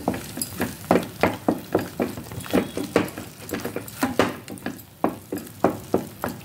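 Wooden spatula stirring and scraping thick ground onion-masala paste in a stainless-steel kadai, knocking against the pan about three times a second.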